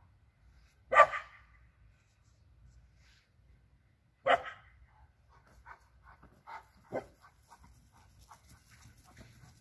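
Young Alabai (Central Asian Shepherd) dog barking: two loud, sharp single barks about three seconds apart, then a softer third bark a few seconds later.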